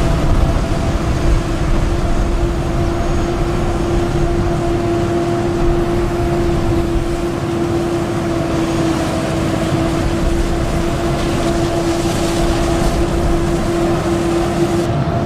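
Heavy farm machinery running steadily: a deep engine rumble with a constant hum over it that stops near the end.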